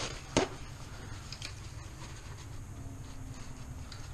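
A single sharp knock about half a second in, then a few faint clicks over a low steady hum: a tool or engine part being handled during disassembly.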